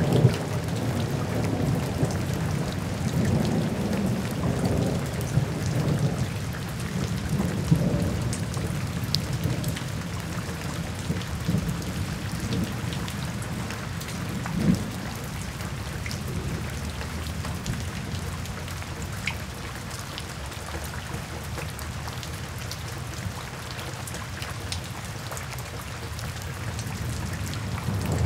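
Steady heavy rain with scattered sharp drop ticks, under a low rolling rumble of thunder. The rumble swells over roughly the first nine seconds, eases off through the middle and builds again near the end.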